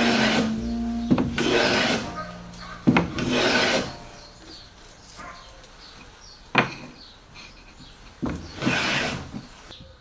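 Hand plane shaving along a thin wooden strip: four strokes about a second long, three close together near the start and one near the end, with a single wooden knock in the quieter stretch between.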